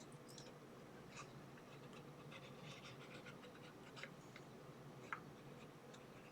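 Faint scratching and a few light clicks of small wooden parts and a glue bottle being handled while wood glue is applied to the joints of a small wooden brush holder.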